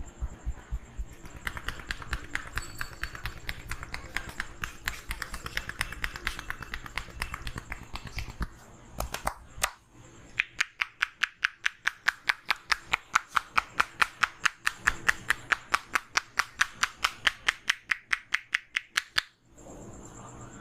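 Hand percussion of a head massage, fast even slaps on the head and body. Deeper thumping strokes for about eight seconds, then after a brief pause sharper, higher claps at about five a second, stopping shortly before the end.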